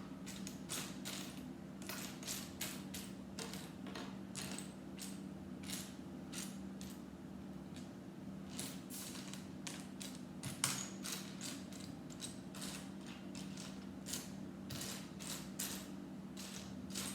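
Loose plastic Lego pieces clicking and rattling as they are sifted through by hand, with many irregular small clicks throughout. A steady low hum runs underneath.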